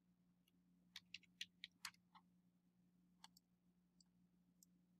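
Near silence with faint computer mouse clicks: a quick run of about half a dozen about a second in, then a few single clicks later, over a faint steady low hum.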